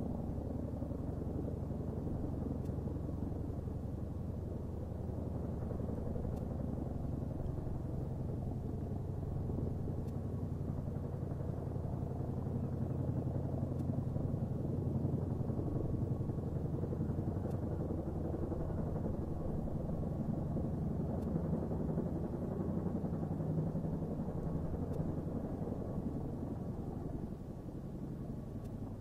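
Boeing Chinook tandem-rotor helicopter running steadily, a low continuous rotor beat with engine drone. It becomes a little quieter near the end.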